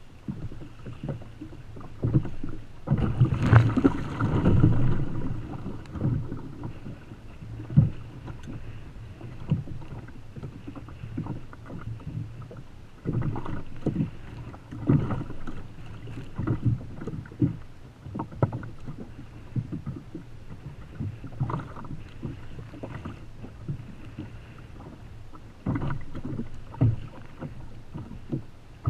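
Choppy sea slapping against the hull of a Feelfree Lure 13.5 sit-on-top fishing kayak, with irregular knocks and thumps and some wind on the microphone. A louder stretch of water noise about three seconds in.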